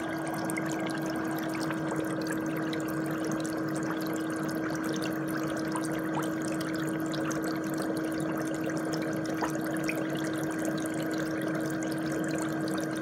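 Bubble foot spa running: a steady motor hum under the constant bubbling of water churned by its air jets.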